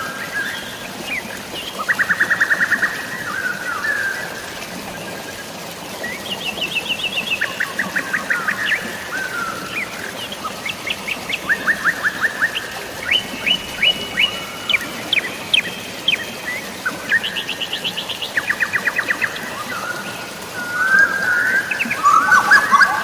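Forest birds singing, with rapid trilled phrases and chirps repeating every couple of seconds and a busier run of calls near the end, over a steady hiss of drizzling rain and flowing water.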